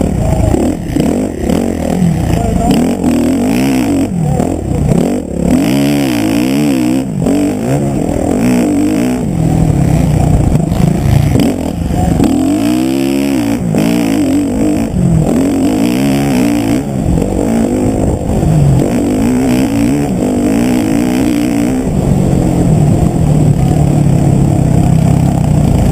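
Motocross bike engine heard close up from the rider's helmet camera, revving hard and dropping off again and again as the bike accelerates, shifts and slows around the track.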